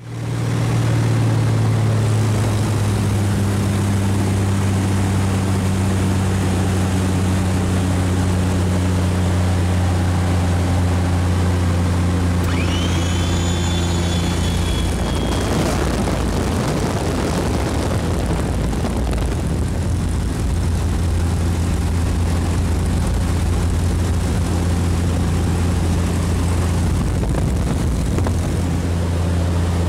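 Cessna L-19/O-1 Bird Dog's six-cylinder Continental O-470 engine and propeller droning steadily, heard from inside the cockpit on the landing approach. About halfway a brief high tone rises and holds for a couple of seconds, and just after it the engine's pitch drops a little.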